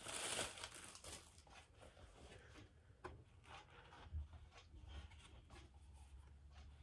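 Faint rustling and light handling noises, with a brief swell of rustle at the start and a soft tap about three seconds in, as paper and packaging are handled in a small room; a low hum comes in about four seconds in.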